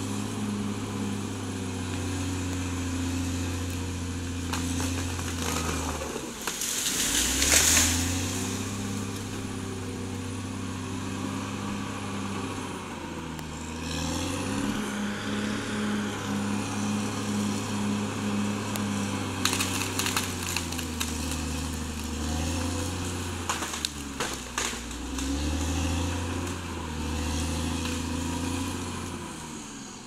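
Caterpillar D6R XL bulldozer's diesel engine working, its pitch dropping and rising several times as the revs change. There is a loud noisy burst about seven seconds in and a run of sharp knocks in the second half.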